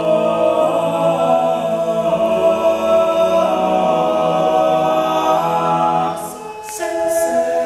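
All-male a cappella group singing in close harmony, holding long chords with no instruments. About six seconds in the chord thins out briefly, with a few hissed 's' sounds, before the voices come back in.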